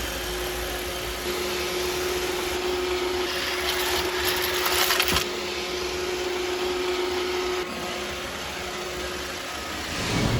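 iRobot Roomba robot vacuum running: a steady whir with a constant hum. It grows louder and rougher for a couple of seconds midway.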